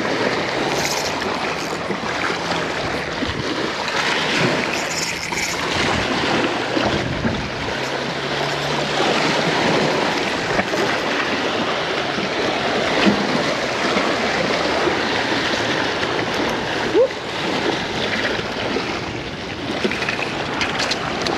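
Waves washing steadily against jetty rocks, a constant hiss of surf, with a faint low hum for several seconds near the middle.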